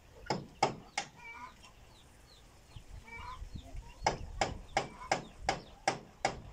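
Hammer blows driving nails on a roof: a few single strikes, then a steady run of about three blows a second from about four seconds in. Hens cluck in between.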